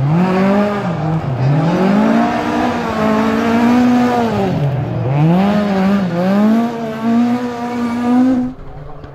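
Toyota rally car's engine revving hard, its pitch climbing and falling again several times as the throttle is worked and gears change. The engine sound cuts off abruptly near the end.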